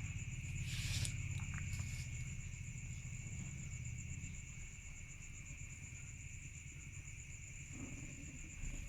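Steady high-pitched drone of insects over a low rumble, with a brief rustle about a second in.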